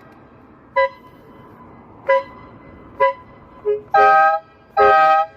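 A horn tooting: a few short single toots, then two longer blasts near the end, each sounding two or three different pitches.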